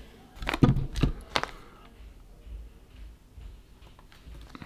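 Handling noise on a workbench: three light knocks in quick succession starting about half a second in, then a single click near the end.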